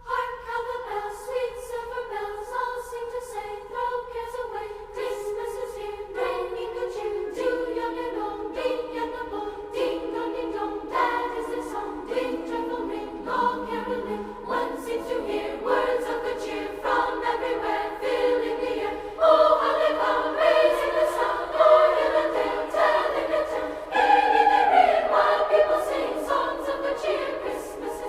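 Background music of choir-like voices singing sustained notes, growing fuller about two-thirds of the way through.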